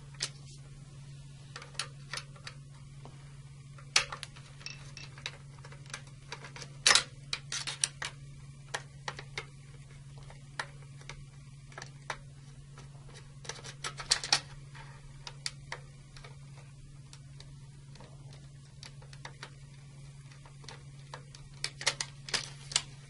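Scattered small clicks and taps of a Phillips screwdriver working screws out of a circuit breaker's plastic secondary mounting bracket, and of the bracket being handled. The clicks come in small clusters over a steady low hum.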